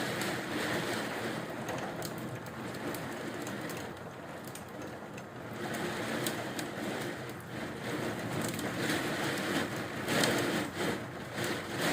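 Heavy storm rain pouring with gusting wind, a steady rushing hiss with scattered sharp ticks, swelling louder about ten seconds in.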